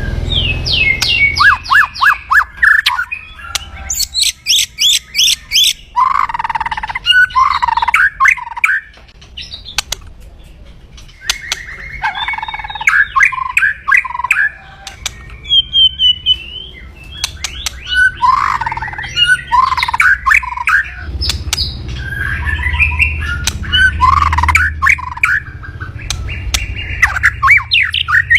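White-rumped shama (murai batu) giving its kretekan, the harsh rattling call of an agitated, aggressive bird: quick trains of rasping notes in phrases of one to three seconds, repeated with short pauses and a quieter gap about ten seconds in.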